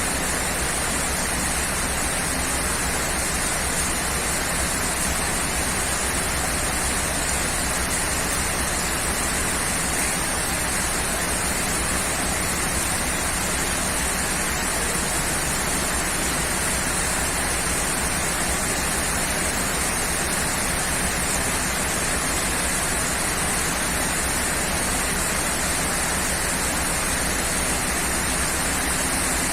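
Steady rain, an even unbroken hiss with no thunder claps.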